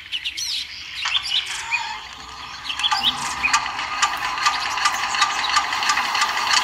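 Miniature hand-cranked tractor engine model being cranked and catching, running with a rapid ticking from about three seconds in. Birds chirp before it starts.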